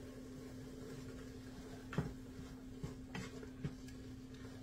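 A few faint, light knocks and clinks of kitchen utensils and cookware over a steady low hum.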